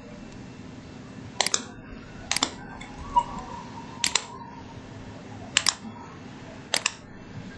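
Computer mouse clicks, five sharp double snaps of a button pressed and released, spread at irregular intervals of about one to one and a half seconds.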